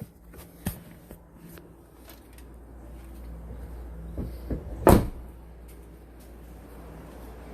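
A few light clicks and knocks, then a single loud hard clunk about five seconds in, like a panel or cover being handled, over a low rumble.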